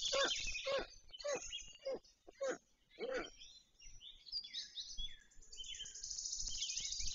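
Black stork chicks calling as the adult feeds them at the nest: a run of short, falling calls, about two a second, for the first three seconds or so. Softer gliding chirps of other birds follow, with a high hiss near the end.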